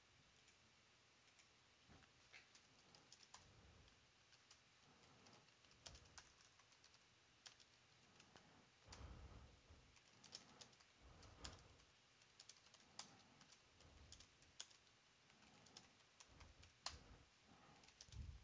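Faint typing on a computer keyboard: irregular key clicks in quick runs, with an occasional heavier keystroke.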